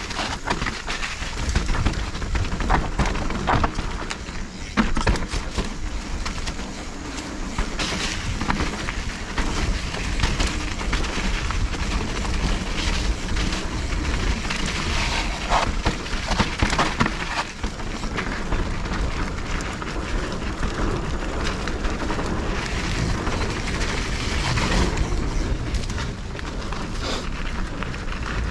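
Riding noise from a Specialized Stumpjumper Evo mountain bike on a rough dirt trail: wind buffeting the microphone in a low rumble, with tyre noise and frequent clicks and rattles from the bike.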